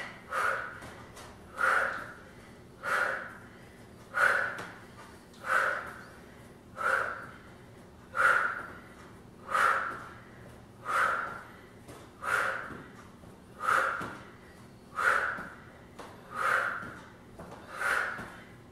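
A woman's short, forceful exhalations, about fourteen in a steady rhythm of roughly one every 1.3 seconds, each timed to one repetition of a side plank knee crunch.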